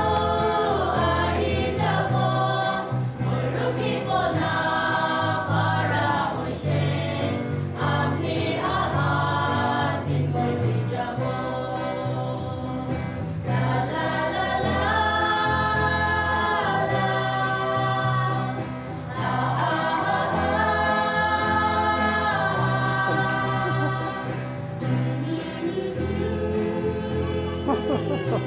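A small mixed choir, mostly women, singing a hymn together in harmony, in phrases of a few seconds, accompanied by guitar and a steady bass line.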